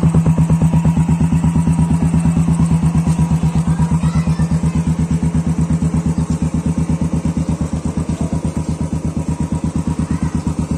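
Royal Enfield Classic 350's single-cylinder four-stroke engine idling through an aftermarket shark-style exhaust, with steady, evenly spaced exhaust beats. The beats grow slightly quieter about four seconds in.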